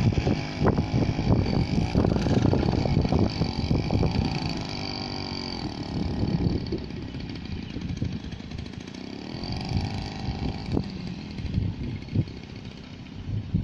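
Small 30cc engine of a rice-paddy power weeder running, with irregular knocks throughout. Its speed drops around five to six seconds in and picks up again around nine to ten seconds.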